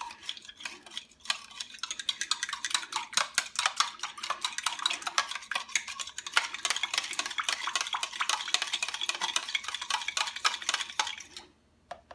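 A metal fork stirring soy sauce marinade in a glass measuring cup: fast, steady clinking of the tines against the glass, which stops shortly before the end.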